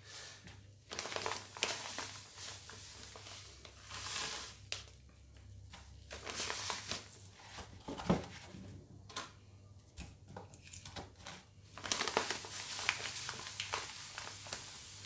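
Salt bag crinkling and sea salt rustling as it is poured and pressed over fish fillets in a plastic container, in faint irregular rustles with a couple of light knocks around the middle and steadier rustling near the end.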